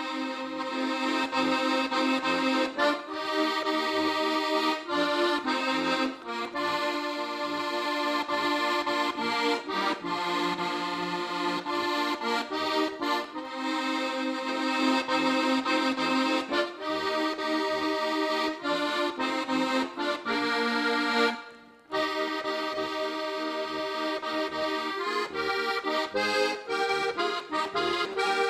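Solo diatonic button accordion (Slovenian frajtonarica) playing a tune, melody over chords, with one short break about three quarters of the way through.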